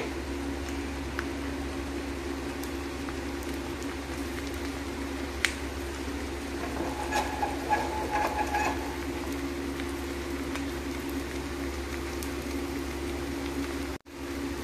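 Gur ke pude (jaggery-and-flour pancake) frying in oil on a tawa: a soft steady sizzle and bubbling under a steady hum, with a couple of sharp clicks and a few short high tones around the middle.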